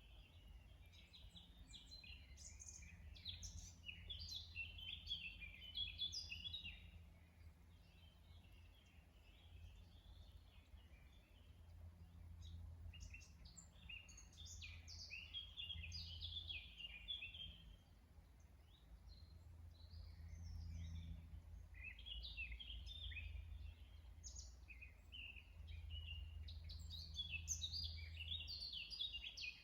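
Wild songbirds singing fast chirping and twittering phrases in three long bouts, over a faint steady low rumble.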